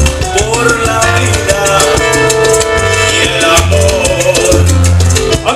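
Salsa music played loud over a sonidero sound system, with a heavy, repeating bass line.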